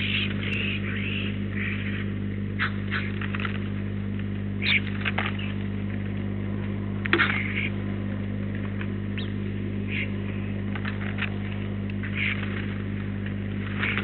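Short bird chirps and calls, scattered through, a few louder ones about 5 and 7 seconds in, over a steady electrical hum.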